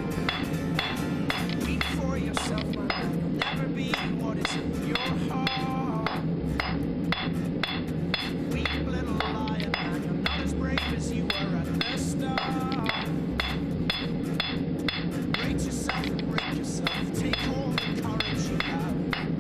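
Blacksmith's hand hammer striking metal on an anvil in a steady, rapid rhythm of about three ringing blows a second, forging the shape of a leaf.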